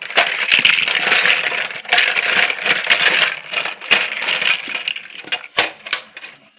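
Large plastic building blocks clattering as they tumble out of a Bruder toy dump truck's plastic tipper onto each other. It is a dense run of clicks and knocks, then a few separate clacks near the end.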